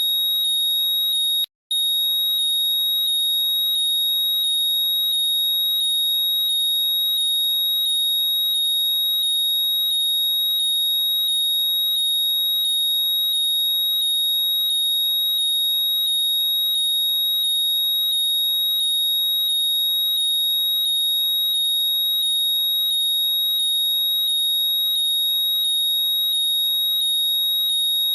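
Apple AirPods' Find My locating sound: a loud, high-pitched alarm of rapidly repeating rising chirps over a steady piercing tone, cutting out briefly about a second and a half in.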